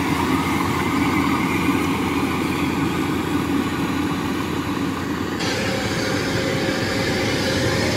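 Tracked rice combine harvesters running steadily while cutting rice: a constant engine and threshing hum. The sound changes abruptly about two-thirds of the way in, where it switches to another machine.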